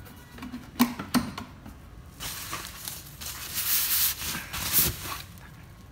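Rustling and rubbing of the white protective bag around a portable speaker as it is handled and lifted out of its cardboard box, with two sharp knocks about a second in.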